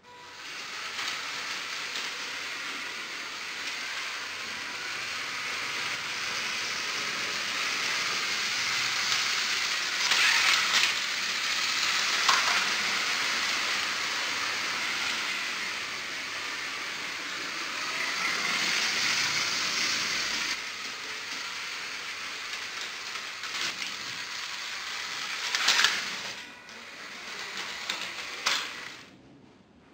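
Lego 9V trains running on the track: a steady whirring rattle of the motors and wheels on the rails, louder at times as a train passes close, with a few sharp clicks.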